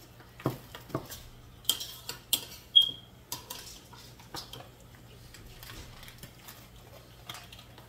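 Tableware clinking at a meal: a spoon and dishes knock several times in the first three seconds, one clink ringing briefly, then a few quieter clicks.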